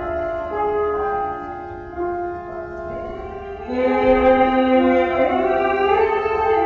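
Instrumental music of long, held chords that swells louder a little past halfway through.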